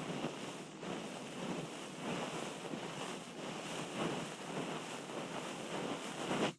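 Ear cleaning worked close on the microphone: continuous scratchy rustling and scraping made of many quick small strokes, cutting off abruptly at the end.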